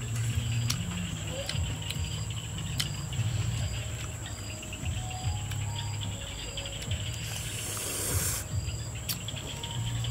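Insects chirping in short, evenly repeated pulses over a constant high insect whine, with the clicks and smacks of someone chewing. A short rush of hiss comes about seven seconds in.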